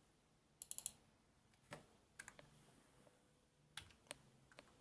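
Quiet keystrokes on a computer keyboard: a quick run of about four keys shortly after the start, then single keypresses spread out, as a superuser password is typed in.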